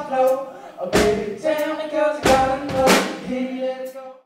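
Music with drums and a melody line, possibly with singing, that drops away at the very end.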